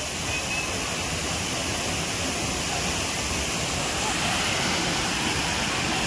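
Soochipara waterfall: water pouring down the rock face into the pool, a steady rush that grows a little louder about four seconds in.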